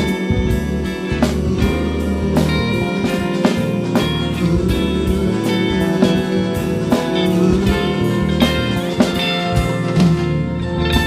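Live band playing an instrumental passage: guitar over bass and drums, with a steady beat.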